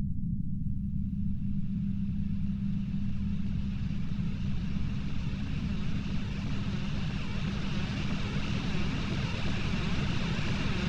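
Sci-fi sound effect: a steady low-frequency rumble with a hum near 200 Hz, and a static-like hiss of otherworldly interference swelling in over it from about a second in, growing brighter and louder.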